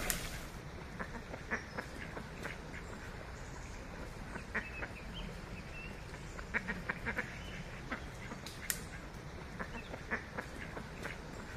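Ducks quacking in short, scattered calls, several in quick succession around the middle.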